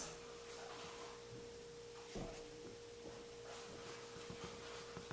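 A faint steady hum on a single tone, with a soft knock about two seconds in and a few light clicks as a lock core and its pins are handled.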